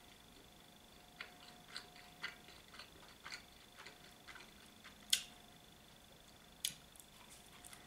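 Faint close-up chewing of a pizza slice: a run of small mouth clicks, then two sharper crunches about five and about six and a half seconds in.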